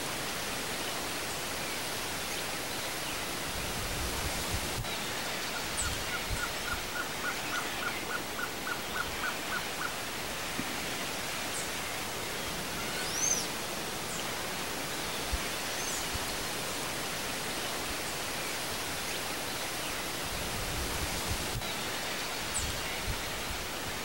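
Blue-crowned trogon singing: a run of about a dozen short, evenly spaced notes, roughly three a second, creeping slightly up in pitch, from about five to ten seconds in. It sits over a steady outdoor hiss, with a few brief high chirps from other birds.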